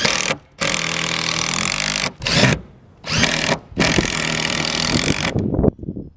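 DeWalt cordless drill driving screws through wooden boards into a metal roof, whirring in four or five runs with short pauses between them.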